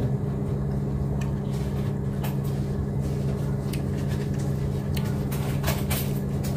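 A steady machine hum with a low rumble under it, with faint scattered clicks and taps over it.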